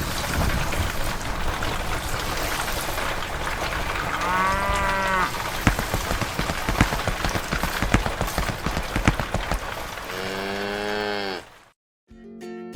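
Steady rain with many small drop ticks, and two drawn-out cow moos, about four seconds in and near the end. The sound cuts out briefly, then music starts.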